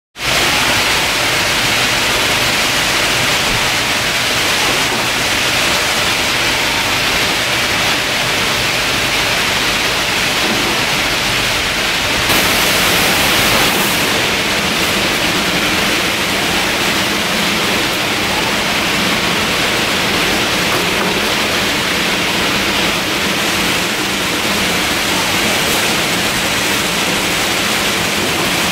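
Steady din of packaging-line machinery: a constant hiss-like noise with a faint low hum underneath, growing brighter and hissier for a couple of seconds near the middle.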